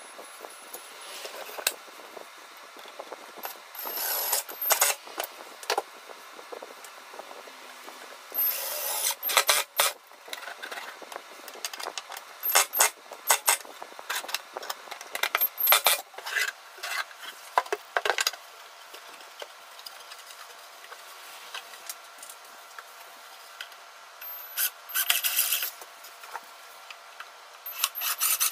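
Cordless screwdriver running in several short bursts as it drives screws through metal ball-bearing drawer slides into a wooden cabinet, with clicks, knocks and metallic rattles of the slides and wood being handled between the bursts.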